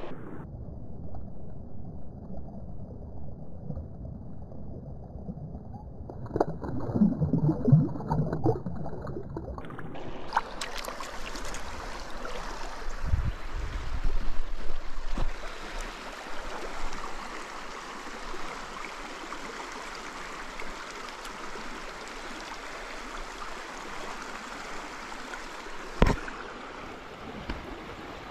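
Trout stream running, the water rushing and gurgling. For the first ten seconds it sounds heavily muffled, with louder sloshing partway through, then the stream comes through clearly. A single sharp knock near the end.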